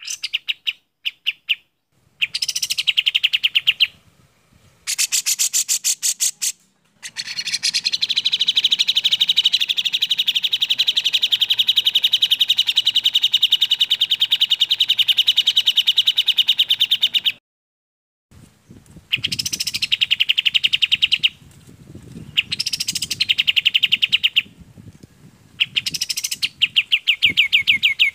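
Bulbul song of the kapas tembak and cucak jenggot, played as a bird-training recording: fast runs of clear, rapidly repeated notes in phrases broken by short pauses, including one long unbroken trill of about ten seconds.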